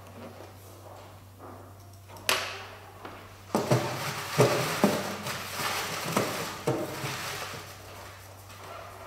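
A single knock a little after two seconds in, then loose paper lottery slips rustling loudly with sharp crackles as a hand stirs through them in a glass draw box, dying down to a softer rustle near the end.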